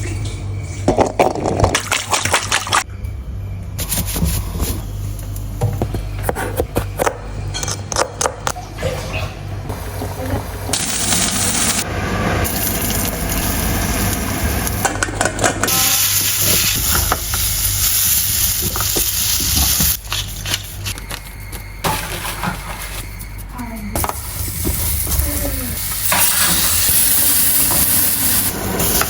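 Cooking sounds: oil sizzling in stretches as food fries, broken up by sharp clicks and knocks of utensils and cookware and stirring in the pan.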